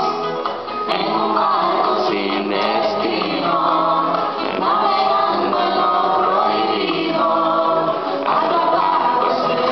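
A man singing a Spanish-language song into a handheld microphone, amplified through PA speakers, with music behind his voice.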